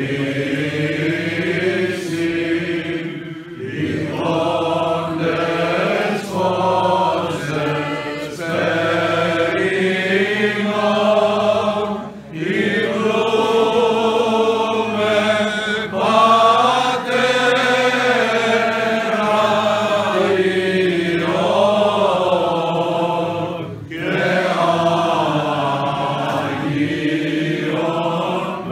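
Greek Orthodox Byzantine hymn chanted by a group of men's voices in long sung phrases, with brief pauses about 4, 12 and 24 seconds in, over a steady low held note.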